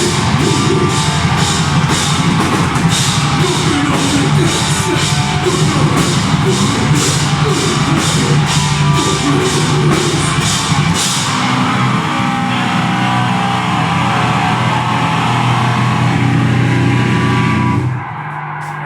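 Deathgrind band playing live: heavily distorted guitar and bass over a steady pounding drum beat. About eleven seconds in the drums drop out, leaving the guitar and bass ringing, and the whole band cuts off suddenly near the end.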